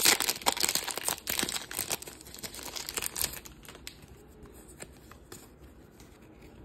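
A foil Pokémon booster pack crinkling and tearing as fingers pull it open, in a dense run of crackles for about three seconds, then dying down to faint occasional ticks.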